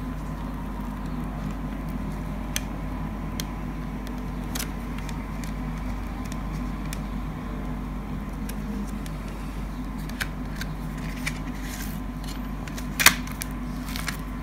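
Light clicks and rustles from a plastic CD jewel case being handled and its paper booklet slid out from under the case's tabs, with one sharper click near the end. A steady low hum runs underneath.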